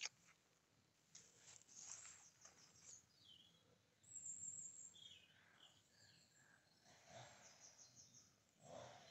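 Near silence, with faint scattered bird chirps and a sharp click at the very start.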